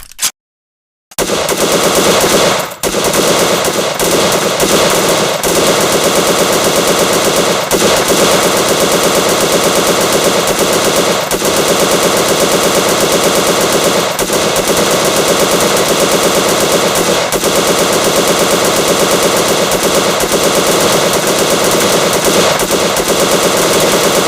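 M1919 Browning machine gun firing on full automatic: after a short click, a long, continuous burst starts about a second in, with one brief break near the beginning.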